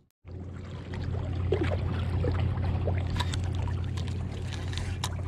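Water sloshing and splashing over a steady low drone, with a few scattered clicks.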